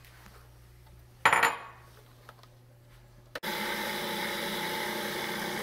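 Mushroom stems tipped into a food processor bowl with a brief clatter about a second in, then the food processor's motor starts more than halfway through and runs steadily, mincing the stems.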